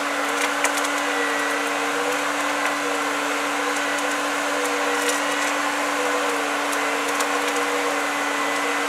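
A Jeep held in first gear with its tires spinning in mud, making a steady mechanical whine with a hiss and scattered ticks. An onlooker thinks the whine may mean it is a little low on transmission oil.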